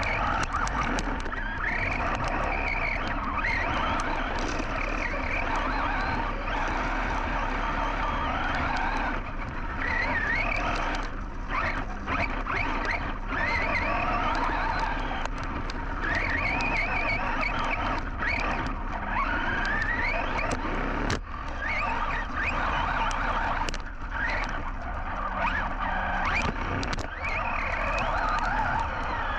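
Team Associated Rival MT10 RC monster truck's brushless motor whining, its pitch rising and falling again and again with the throttle, over steady noise from the drivetrain and tyres.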